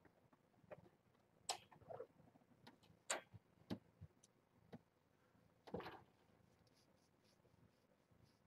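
Near silence broken by faint, scattered taps and clicks and a short rustle about six seconds in, from kittens scrambling and playing on a towel in their wire pen.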